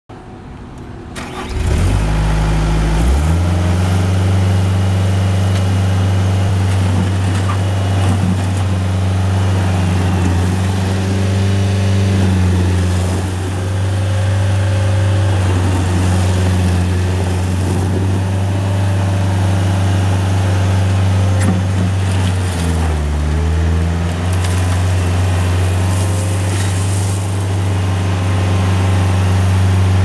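Bobcat S130 skid steer's diesel engine starting about a second and a half in, then running steadily as the machine drives and works its bucket. Its pitch drops briefly about 22 seconds in and comes back up.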